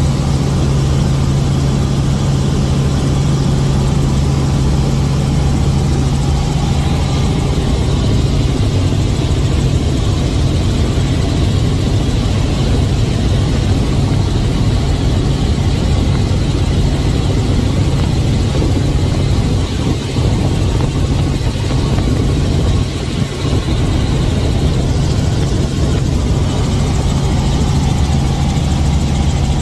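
Light helicopter in flight heard from inside the cabin: engine and rotor making a loud, steady low drone that holds level throughout.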